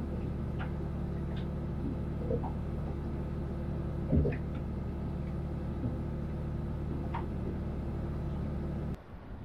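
A steady low mechanical hum from a machine running aboard, with a few faint short high sounds over it. It cuts off suddenly near the end.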